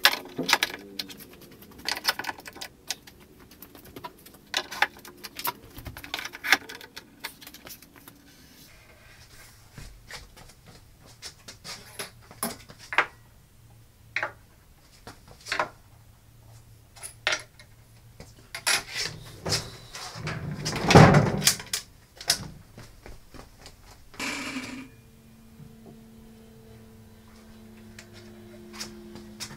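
Scattered clicks and knocks of bar clamps and tools being handled on a wooden workbench as a clamped-up door panel is adjusted, with a louder, longer clatter about two-thirds of the way in.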